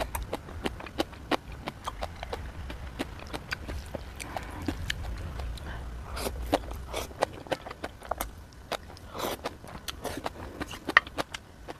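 Close-up eating sounds from jjajang ramen and spicy green onion kimchi: rapid wet clicks and smacks of chewing, with a few longer rushing sounds, one about halfway through and one near three quarters of the way.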